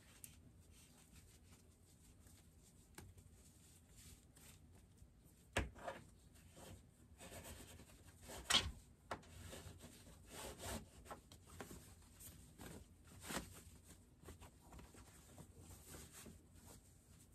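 Faint rubbing and rustling of cotton fabric being pushed and pulled along a wooden chopstick as a sewn strip is turned right side out. A few short, sharp knocks break it, the two loudest about a third and about half of the way through.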